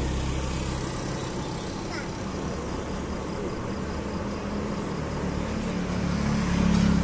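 Steady low background rumble with a hiss, growing louder near the end.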